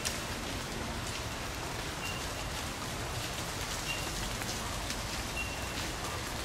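Steady rain falling, an even hiss of raindrops.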